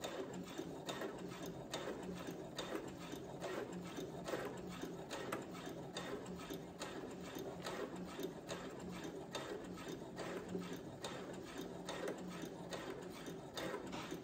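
Brother CS7000X computerized sewing machine stitching a seam at a steady pace: a constant motor hum with evenly repeated ticking of the needle strokes.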